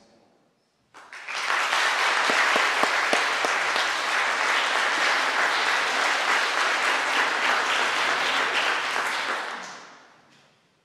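Audience applauding, starting suddenly about a second in and fading out near the end.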